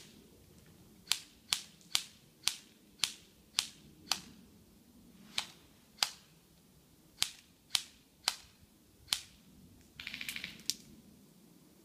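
Airsoft guns firing: a string of single sharp cracks, many about half a second apart, then a short rapid full-auto burst near the end.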